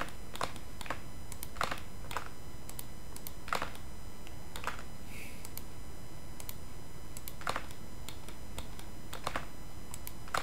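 Sparse, irregular clicking of a computer keyboard and mouse, about a dozen clicks with a pause in the middle, over a steady faint background hiss.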